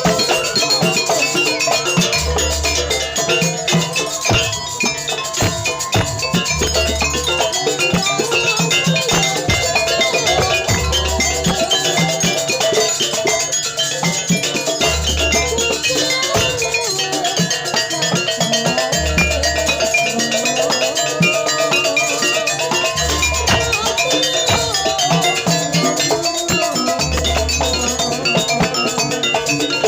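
Live gamelan-style ensemble music: quick repeating metallophone notes and drumming over a deep low stroke that comes about every four seconds.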